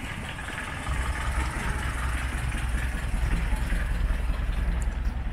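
A light delivery truck's engine idling. A steady low rumble grows louder about a second in and holds, over an even street hum.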